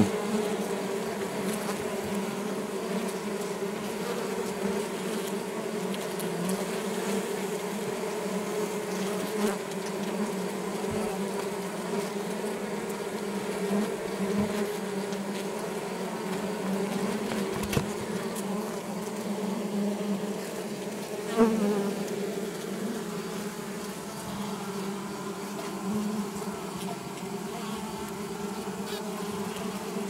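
Honeybee colony buzzing inside a top bar hive: a steady drone of many wingbeats, with a brief louder buzz about two-thirds of the way through.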